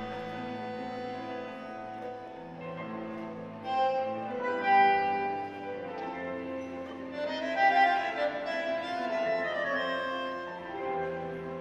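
Tango nuevo music played over the sound system: long held notes and a melody that swells and slides in pitch in its second half.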